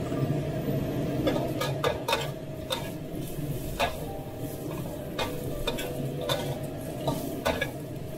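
Metal spatula scraping and clinking irregularly against a steel wok as green beans with dried chillies are stir-fried over high heat, with a steady sizzle underneath.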